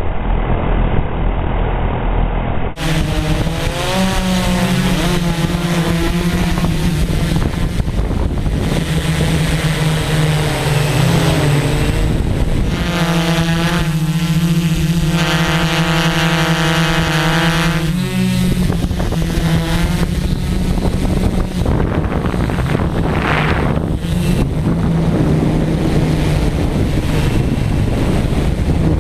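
Electric motors and propellers of a radio-controlled multirotor drone buzzing, the pitch rising and falling as the rotor speed changes, with a steady, even stretch around the middle. The sound changes abruptly about three seconds in.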